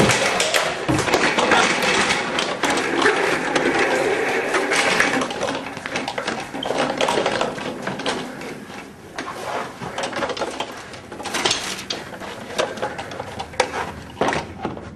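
Wheeled office chair rolling fast, its casters rattling and clattering over the floor. The rattle is dense and loud for the first half, then thins to scattered knocks.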